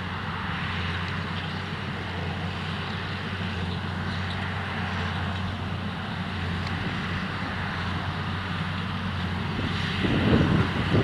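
John Deere tractor engine running steadily, with wind buffeting the microphone about ten seconds in.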